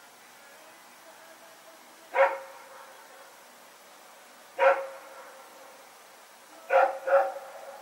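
A dog barking at night: four single barks, a couple of seconds apart, the last two in quick succession, each trailing off in a short echo.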